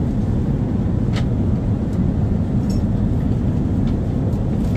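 Steady low rumble of cabin noise aboard an Airbus A380 airliner, with a faint click about a second in.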